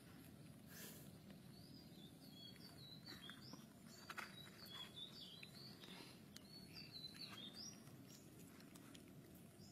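Faint background bird twittering: many short high chirps from about two and a half seconds in until near the end, over low steady background noise with a few faint clicks.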